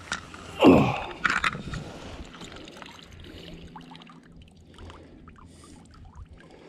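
Water splashing and sloshing at the surface, loudest about a second in, then fainter lapping with small ticks.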